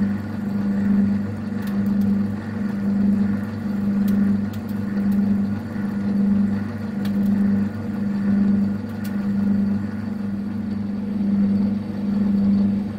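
Boxford lathe running while screwcutting an internal thread, a steady hum that swells and fades about once a second, with a few faint light clicks.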